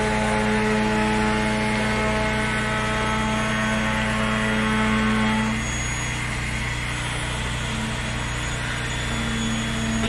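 Concrete pump truck's diesel engine running steadily under load while concrete is pumped through the boom hose. About five and a half seconds in its higher tones fall away and it runs a little quieter.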